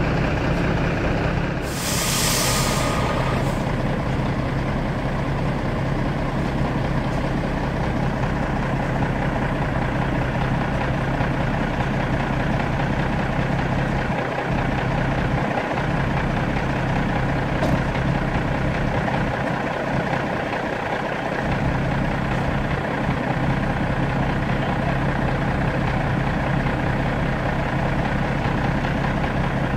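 Heavy diesel lorry engine idling steadily. About two seconds in there is a sharp hiss of air from the brakes, lasting a second or so.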